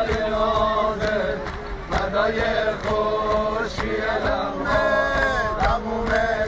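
A crowd of men chanting a mourning lament together, a sung melody carried by many voices at once.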